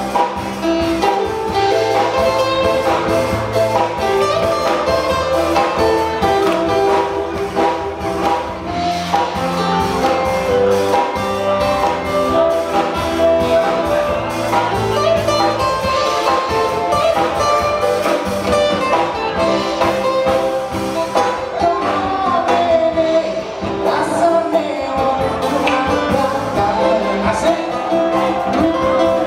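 Amplified song with a singer and instrumental accompaniment, playing over the hall's loudspeakers without a break.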